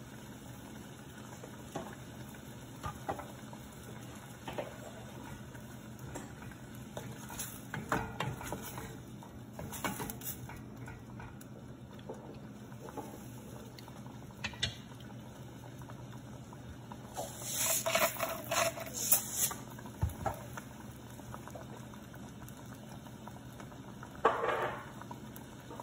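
Thick curry gravy simmering in a stainless steel saucepan while a wooden spatula stirs it, scraping and knocking against the pot in scattered strokes, loudest in a cluster a little after halfway, over a steady low background hum.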